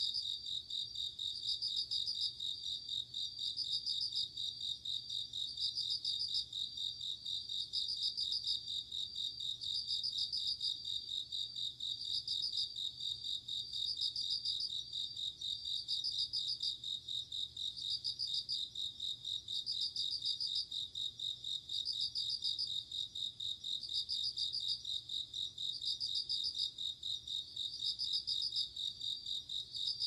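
Crickets singing at night: a steady high trill with a louder burst of rapid chirps about every two seconds.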